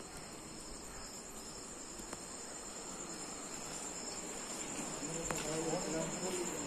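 Crickets chirping in a steady, high-pitched trill.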